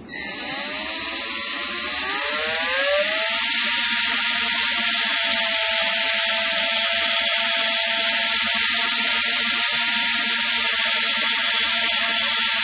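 Power drill running with a small brush, polishing toothpaste into a plastic reel part: the motor whine rises in pitch over the first few seconds as it spins up, then holds steady with a hiss of the brush rubbing.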